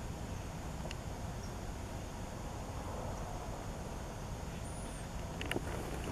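Outdoor ambience: a steady low rumble, with a few faint clicks and one short high whistle about five seconds in.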